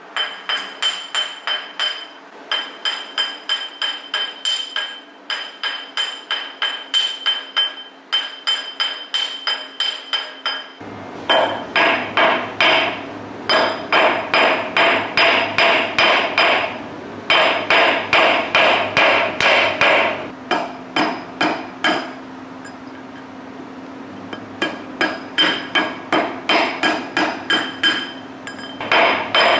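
A small hammer tapping a metal coin being shaped into a ring, in quick runs of about four strikes a second with short pauses, each blow ringing briefly. About eleven seconds in, the strikes grow louder.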